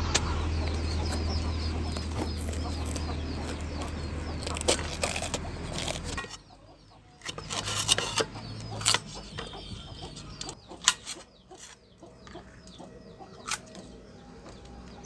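Chickens clucking in the background, with a low steady hum that cuts off about six seconds in and a few scattered knocks and clicks.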